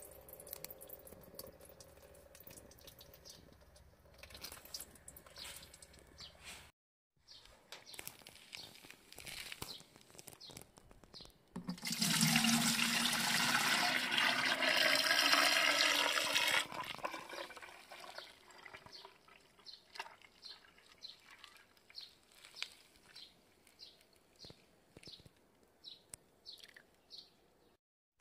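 Used engine oil poured from a drain can into a plastic jug: a loud rush of liquid for about five seconds midway, its pitch rising as the jug fills. Afterwards a run of small ticks as the foam on the oil settles.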